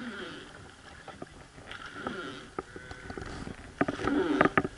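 Sharp wooden knocks and clacks from the river boat as the boatman works his pole, a few scattered at first, then several in quick succession near the end.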